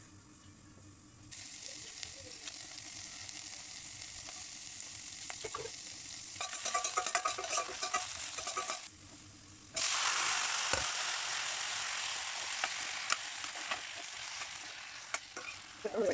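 Hot coconut oil sizzling in a stainless steel pot as chopped garlic, dried red chillies and curry leaves fry in it, with a spatula scraping and stirring. The sizzle starts about a second in, breaks off briefly around nine seconds, then comes back louder.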